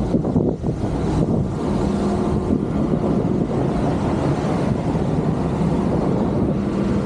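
Wind rumbling on the microphone of a camera carried on a moving bicycle, over road noise. A low steady hum comes in about two seconds in and again near the end.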